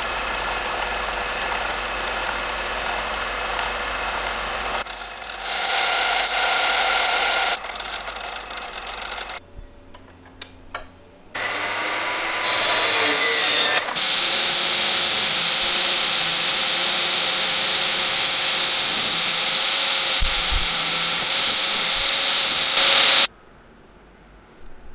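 A bench drill press runs and drills into a steel flat bar for the first few seconds. About halfway through, an abrasive cut-off saw winds up with a rising whine and grinds steadily through a steel tube, then stops abruptly near the end.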